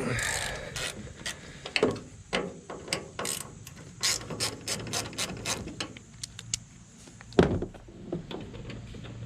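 Hand ratchet with a Torx T25 bit clicking as the tail light housing screws are turned out, with a quick run of clicks in the middle and a few knocks of the tool.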